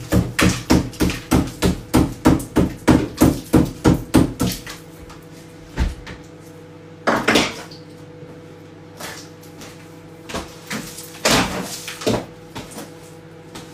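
Hammer blows against the inside of a refrigerator, a fast even run of strikes, about two to three a second, that stops about four and a half seconds in, followed by a few scattered single knocks.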